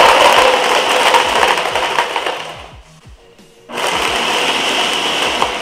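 Countertop blender crushing ice into a strawberry piña colada smoothie. It runs for about three seconds, winds down and stops, then starts again about a second later for a second run.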